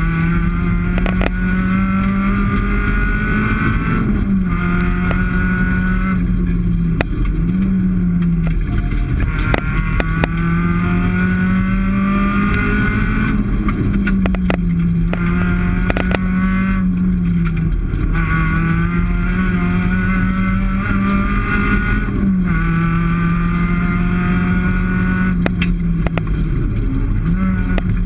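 Rally car engine heard from inside the cabin, driven hard on a stage: its pitch climbs for a few seconds and then drops sharply, again and again, as it revs, shifts and lifts for corners. Scattered sharp clicks and knocks sound through it.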